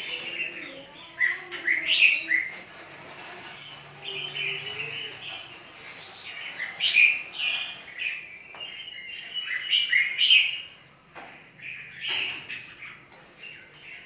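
Caged red-whiskered bulbuls chirping and calling in short, bright phrases, with a few sharp clicks in between.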